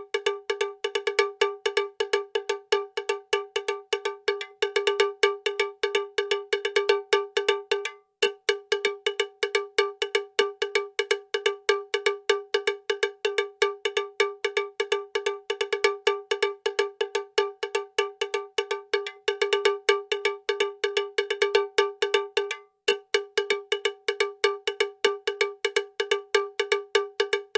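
Rapid, evenly repeated strikes of a bell-like metallic tone, all at the same pitch, several a second, breaking off briefly about eight seconds in and again near twenty-three seconds.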